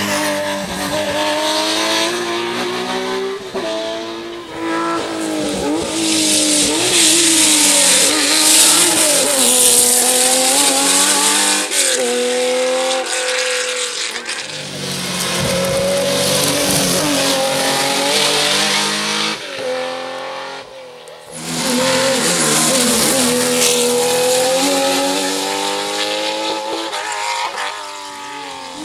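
Historic rally cars at full effort on a stage, engines revving hard and dropping back through gear changes as one car after another goes by.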